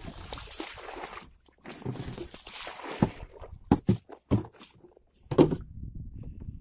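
A landed king fish knocking against the deck of a small fibreglass boat while it is handled. There is a rushing hiss for the first few seconds, then five or so sharp thumps between about three and five and a half seconds in.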